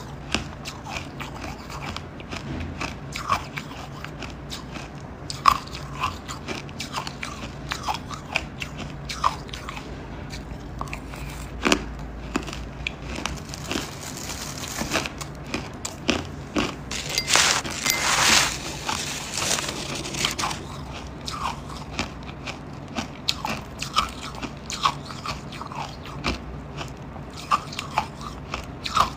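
Close-miked chewing of crumbly frozen 'buckwheat ice': irregular crisp crunches and crackles as the ice grains break between the teeth, with a louder, denser stretch of crunching a little past halfway.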